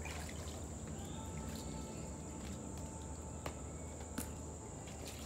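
Steady high-pitched drone of an insect chorus in the surrounding woods, with a couple of short sharp clicks past the middle.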